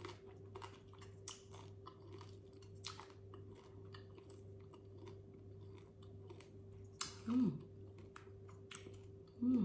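Close-miked chewing of seafood boil, with wet chewing and repeated sharp crunches as shell or bone is bitten through. Two brief voice-like sounds from the eater come near the end.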